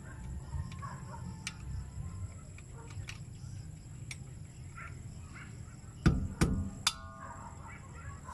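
Rubber mallet knocking on a flat-blade screwdriver held against a car's rear brake drum hub: three sharp knocks in quick succession about six seconds in, with a brief metallic ring after them. A few light clicks of the screwdriver on the hub come before.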